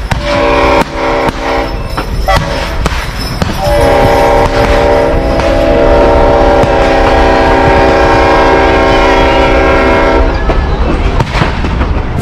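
Train horn sounding two blasts, a short one near the start and a long steady one of about six seconds, over the low rumble of the moving train. A few sharp cracks come in the first few seconds.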